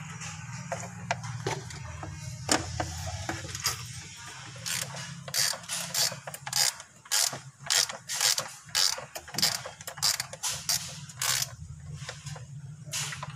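Ratchet wrench clicking in short back-and-forth strokes, about three a second from about four seconds in, as bolts on a Toyota 2C diesel engine's timing belt cover are turned. A low hum sits under the first few seconds.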